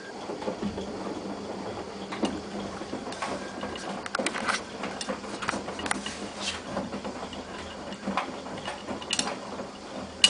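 Hotpoint-Ariston AVXXF137 washing machine turning its drum during the wash: a steady motor hum with scattered clicks and knocks from the tumbling load. It stops with a sharp click near the end.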